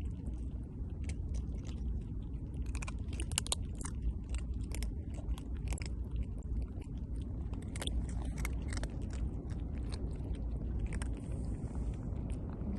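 A cat chewing crunchy food close to the microphone, many irregular crunches, over a steady low rumble.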